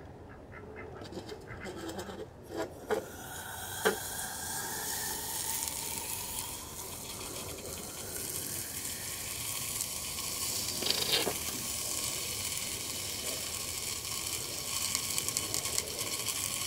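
Molten lead poured from a tin can into a steel bench vise, hissing and sizzling as it hits the metal, with a few sharp clinks of the can against the vise. The hiss builds up about three seconds in and runs on steadily.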